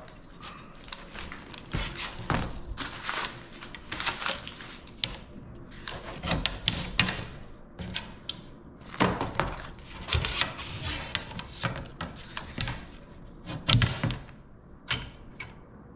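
Irregular clicks, knocks and clatter as an IVO propeller hub is unbolted with a hand tool and its composite blades are pulled free and handled on a cardboard box. The clicking comes in several spells of quick strokes, with single knocks between them.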